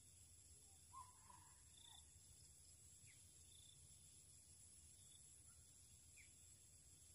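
Near silence: faint rural ambience with a steady high insect drone and a few brief, distant bird chirps, the clearest about a second in.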